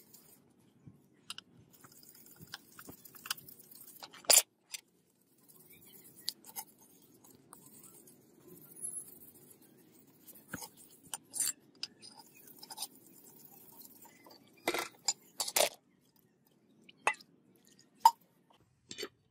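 A hand brush scrubbing rust off a steel katana blade in short, irregular scratchy strokes. Several sharp clinks and knocks break through, the loudest about four seconds in and a cluster near the end.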